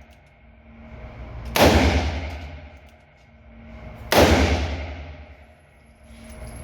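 Two shots from a short-barrelled handgun firing heavy handloaded 240-grain rounds, about two and a half seconds apart, each ringing out and dying away in the reverberation of an indoor range.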